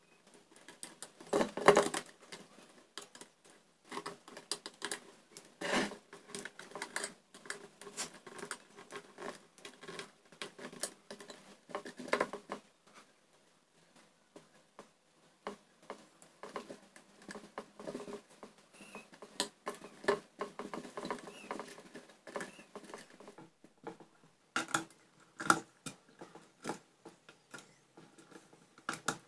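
Irregular small clicks, taps and scrapes of hands wiring an electrical switch board: a wire being handled and terminal screws on plastic switches being turned with a small screwdriver.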